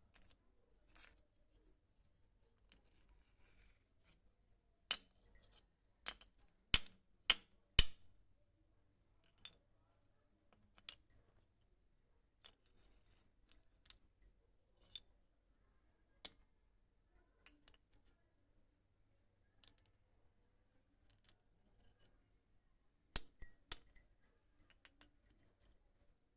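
Shards of a fired terracotta clay pot snapping and clinking as they are broken by hand against a hard floor: scattered sharp cracks and clicks, the loudest in a cluster of snaps a few seconds in and again near the end.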